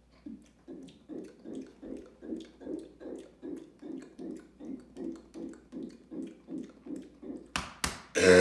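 A person gulping soda in quick regular swallows, about three a second. Near the end come two sharp clicks, then a loud burp begins.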